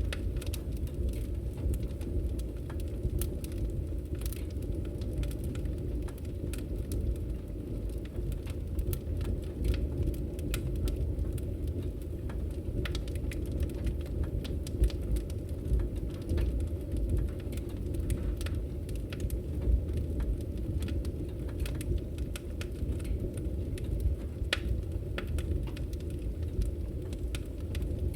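Wood fire burning in an open fireplace: a steady low rumble of flame with frequent sharp crackles and pops scattered throughout.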